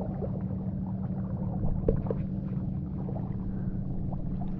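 Muffled, steady rumble of moving seawater around a camera held in the sea, with faint bubbling and a few small clicks, as a spearfisher swims along.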